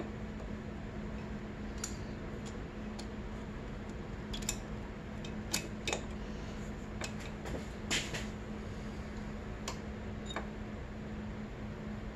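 Scattered light metallic clicks and taps as a cam chain and camshaft sprocket are shifted and seated in a Honda CRF250R cylinder head while the cam timing is set, over a steady low hum. The sharpest clicks come around the middle.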